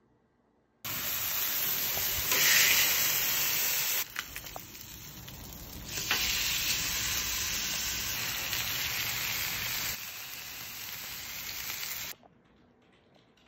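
Rib-eye steaks sizzling on the flat-top of a Pit Boss Ultimate Griddle: a steady frying hiss that starts about a second in, steps up and down in level a few times, and stops near the end.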